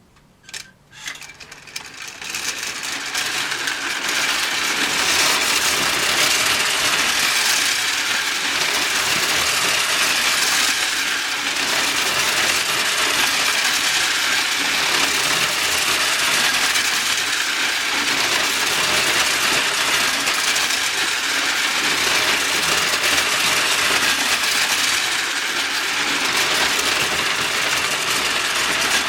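Wind-up clockwork toy locomotive running: a few clicks at the start, then a steady whirring clatter of the spring motor and gears that builds over the first few seconds and holds.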